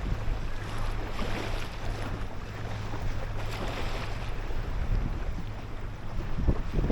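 Small 6 hp outboard motor on an inflatable boat running steadily under way, with a steady low hum. Wind buffets the microphone in gusts, most strongly near the end, over the rush of water against the hull.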